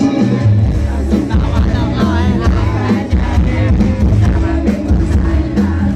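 A live band plays a Thai song with a heavy bass beat, and a singer's voice comes in about two seconds in.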